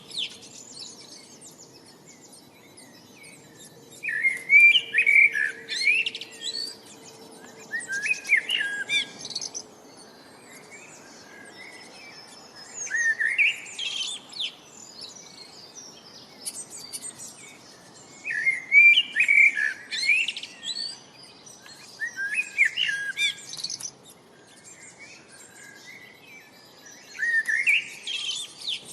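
A songbird singing short, high, pitch-sweeping phrases, about seven of them a few seconds apart, over a faint steady background hiss.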